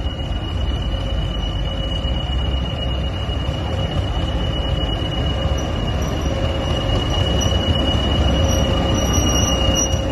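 Diesel-hauled train running, a steady low rumble under a continuous high-pitched whine.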